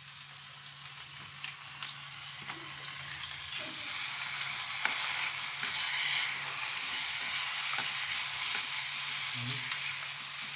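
Onion masala with tomato gravy sizzling as it fries in a kadai, with a spoon stirring it and ticking against the pan. The sizzle grows louder about four seconds in.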